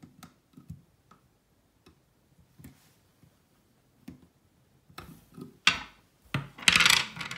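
Small metal clicks and ticks as a screwdriver works the set screw of a chrome single-lever basin mixer tap's handle. Near the end, louder knocks and a loud rustling clatter follow as hands and tools move away from the tap.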